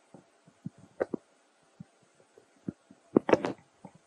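Scattered soft taps and rustles from a baby macaque moving on a stone ledge and picking up a piece of fruit, with a louder cluster of handling sounds about three seconds in.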